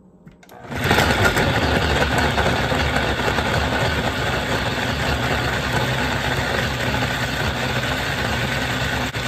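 Countertop blender switched on a little under a second in and running steadily at full power, churning cooked plantains with some of their cooking water.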